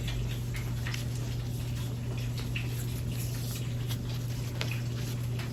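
Soft rubbing with faint squeaks and light ticks, typical of a wipe cloth being worked over an iPad's glass screen, over a steady low electrical hum.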